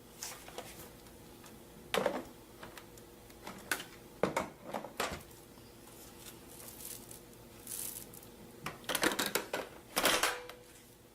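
Scattered clicks and knocks, as of hard plastic parts being handled, with a faint steady hum underneath; the loudest knocks come about two seconds in, twice around four to five seconds in, and in a cluster near the end.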